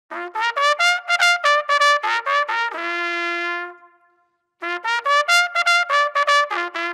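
Intro music jingle: a quick melody of short, detached notes ending on a held note that fades away, a brief pause just before four seconds in, then a second run of short notes.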